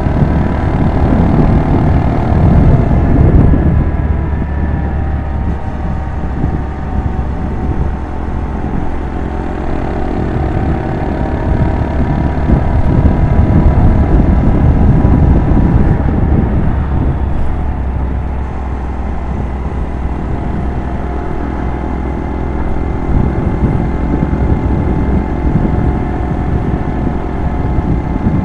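Small single-cylinder motorcycle engine running under way, its pitch drifting up and down with speed, with wind rumbling over the microphone.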